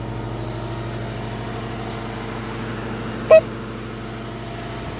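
A car engine idling steadily, with one brief loud squeak about three seconds in.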